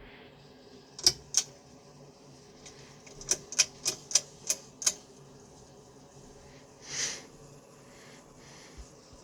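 Sharp clicks: two about a second in, then a run of six at about three a second, followed by a short hiss, over a faint steady hum.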